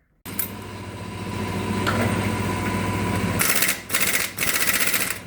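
A vehicle lift's electric pump motor runs steadily as it raises the car, with a hum and a thin steady whine. It cuts out about two-thirds of the way in and gives way to a fast, even mechanical rattle.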